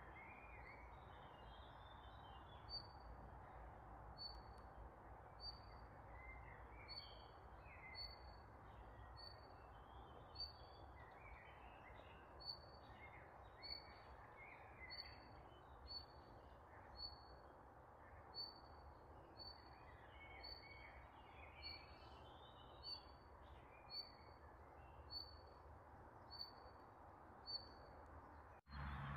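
Birdsong over a faint, steady outdoor background: one bird repeats a short, high note about every three-quarters of a second, while other birds chirp now and then.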